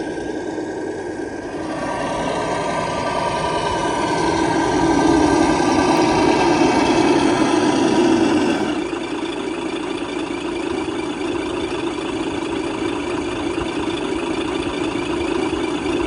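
Traxxas TRX-6 RC truck's electric motor and drivetrain running steadily. It grows louder for a few seconds, then drops to a quieter, changed running sound about nine seconds in.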